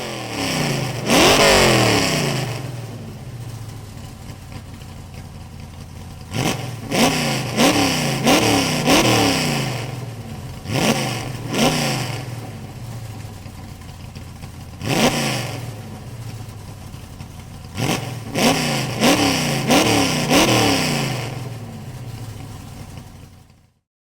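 Car-engine ringtone playing: an engine revving hard, its pitch climbing in quick steps as if shifting up through the gears, in several bursts with quieter running between. It cuts off near the end.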